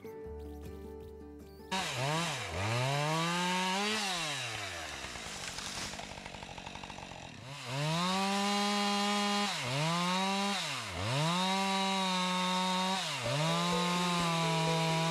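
Two-stroke chainsaw revving up to full throttle and dropping back several times, with a short stretch of idling in the middle. It starts about two seconds in over soft music and cuts off suddenly at the end.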